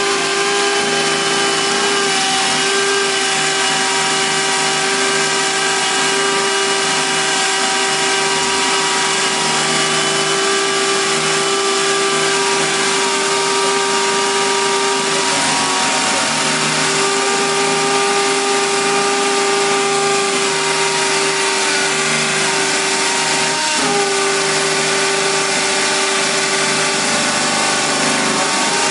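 Two Makita 18V cordless hammer driver-drills, a BHP458 and a BHP459, both drilling into a concrete block at once. Their two motors whine steadily and loudly over the noise of the bits cutting the concrete.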